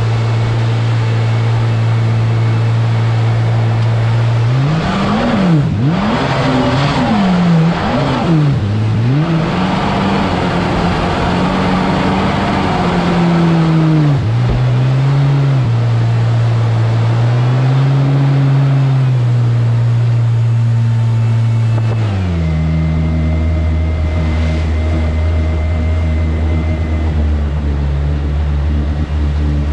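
Small aluminium jet boat's 300 Ultra engine: steady at first, then revved in several quick blips up and down from about four seconds in, held at higher revs with the rush of the jet's wash, and dropped back to a low idle with a thin whine a little after twenty seconds in.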